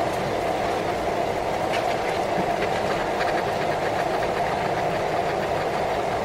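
A steady, loud mechanical drone, like a fan or motor running, with faint crinkles of paper as pastry is unrolled from its wrapping.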